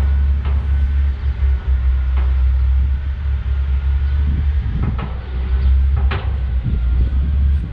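Tractor engine running with a steady low drone, with a few sharp knocks and rattles over it.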